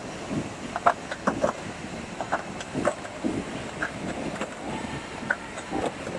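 JD-260 cellophane overwrapping machine running: a steady mechanical noise with sharp clicks and clacks at uneven spacing, roughly every half second to second.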